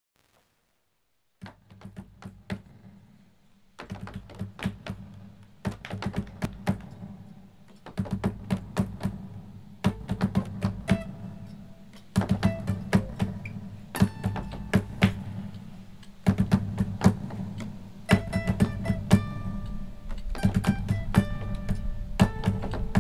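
Acoustic guitars playing a folk song's instrumental intro, beginning after about a second and a half of silence: sharp percussive thumps and taps over a low sustained bass, with plucked notes joining about ten seconds in and the music growing fuller and louder in steps.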